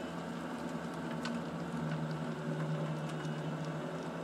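Mini excavator's diesel engine running with a steady hum, swelling slightly about two seconds in, with a few faint clicks.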